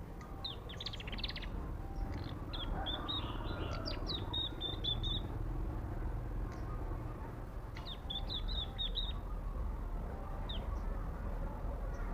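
A small songbird chirping in quick high-pitched runs: three bursts, about half a second in, from about two and a half to five seconds, and around eight to nine seconds, then one single chirp. A steady low rumble sits beneath.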